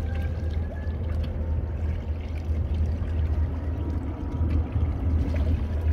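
Water sloshing and splashing against the hull of a boat under way, over a steady, fluctuating low rumble.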